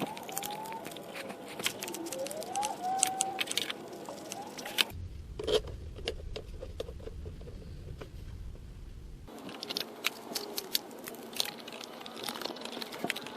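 Scattered light clicks, knocks and clatter of hands and tools working on fittings in a car's engine bay, with a low hum in the background for a few seconds in the middle.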